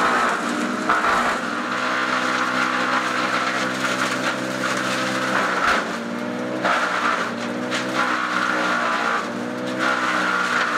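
Timberwolf TW S426TDHB green waste shredder running while processing branches: a steady engine drone whose pitch dips and recovers several times as material is drawn in and broken up by its forged steel hammers, with a rough, rushing crunch of chips blowing out of the discharge chute.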